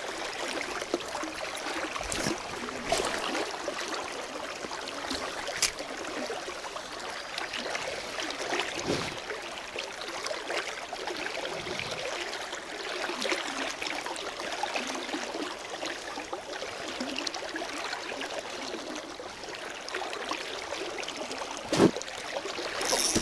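River current rushing and babbling over a shallow, stony bed, a steady even wash with a few short knocks and rubs near the microphone.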